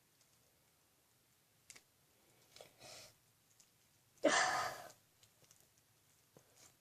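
A person's short sigh about four seconds in, falling in pitch, between a few faint clicks and soft rustling.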